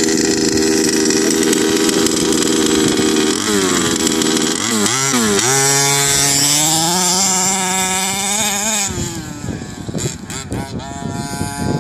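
HPI Baja 5B RC buggy's small two-stroke petrol engine running at high revs. About four seconds in the pitch dips and rises with the throttle, then climbs steadily as the buggy accelerates. From about nine seconds it is quieter and more distant, revving up and down.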